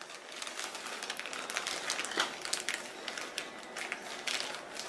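Plastic bag of brown sugar crinkling as it is squeezed and tipped, pouring sugar into a plastic measuring cup: a steady run of small crackles with a few sharper clicks.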